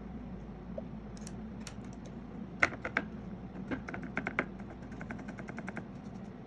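Light clicks and taps: three louder taps about two and a half seconds in, a short cluster a second later, then an even run of quick clicks, about ten a second, over a steady low hum.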